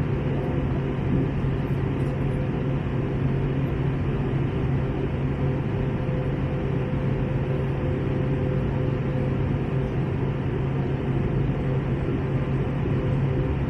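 Steady cabin noise of an Airbus A321 in flight: engine drone and rushing airflow with a low, even hum and no change throughout.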